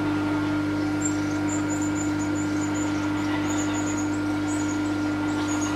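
Milling machine (TOS FNK25A) running steadily with an even hum, no cut being taken. Short high chirps come and go over it.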